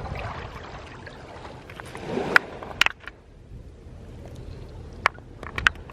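Seawater lapping and sloshing among shoreline rocks, with a handful of sharp clicks and knocks of stones or shells.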